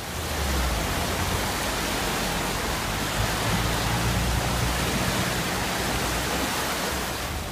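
Muddy floodwater rushing fast down a flooded lane: a loud, steady rush of water.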